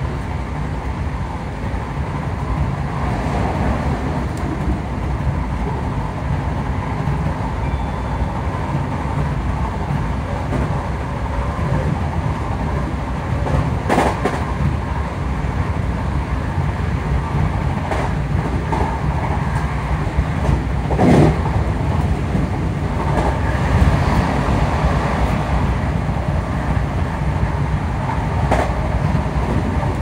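Class 334 electric multiple unit running at speed, heard from inside the carriage: a steady rumble of running gear and traction motor fans, with a few brief knocks over the track.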